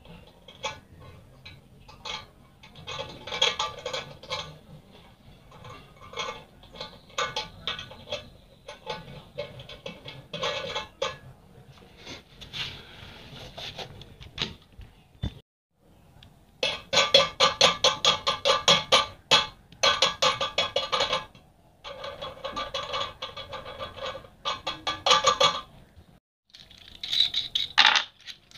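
Background music with a quick, even rhythm, cutting out briefly twice.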